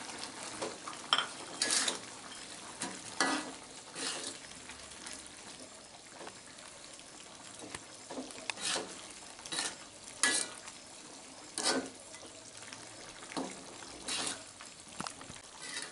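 A spatula scraping and knocking against a metal wok in irregular short strokes, stirring fried pindang fish into the spicy balado sauce. Under the strokes the sauce bubbles steadily at the boil.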